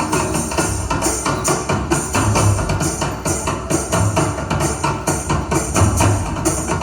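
Dance music with percussion keeping a fast, steady beat, over a low pulse that recurs about every two seconds.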